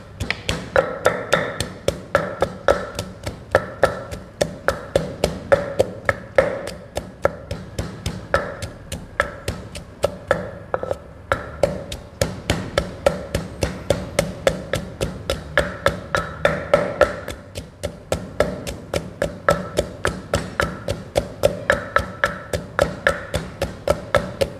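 Wooden pestle pounding in a clay mortar, crushing garlic and chilies: steady dull knocks at about three to four strokes a second, easing briefly twice.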